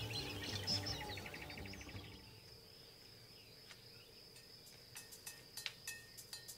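Background music fading out over the first two seconds, leaving faint savanna evening ambience: a steady high insect drone with a few sharp ticks and chirps toward the end.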